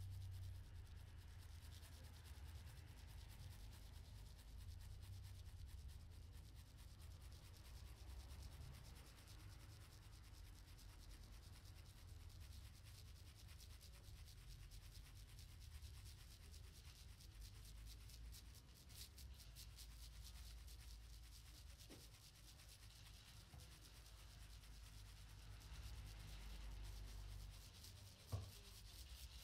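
Percussion ensemble making faint, steady rubbing sounds, with one sharp click about a second before the end.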